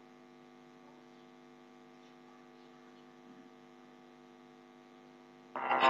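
Faint steady electrical mains hum with no other activity. Near the end, music with guitar starts suddenly and loudly.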